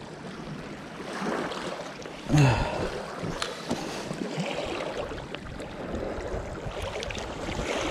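Water splashing and lapping along the bank, with a few small clicks and a short grunt about two and a half seconds in.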